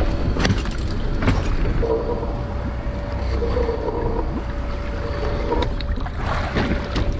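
A small boat's engine runs steadily under a steady thin whine, with a few sharp knocks as a crab pot is handled at the gunwale.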